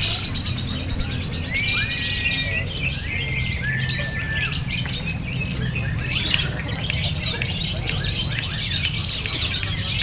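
Lovebirds chattering in dense, rapid high chirps. In the first half there are several held, whistle-like tones of about half a second to a second each, and a steady low hum runs underneath.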